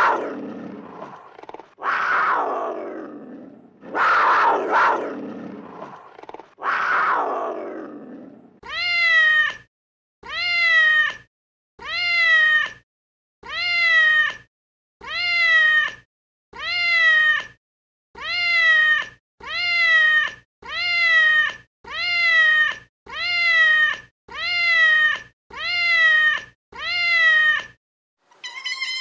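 A cat meowing over and over. First come four loud, rough cries that fall in pitch, then a long run of evenly spaced, alike meows, about one every second and a half, stopping shortly before the end.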